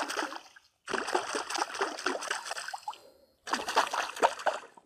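Splashing and sloshing at a lake's surface made with a spinning rod, in three bouts, the middle one about two seconds long. The splashing is done on purpose to draw predatory perch, which respond well to splashes.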